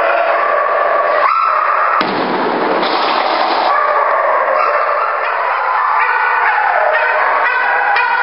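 Loud, continuous background music with held chords that change about once a second, and an abrupt change about two seconds in.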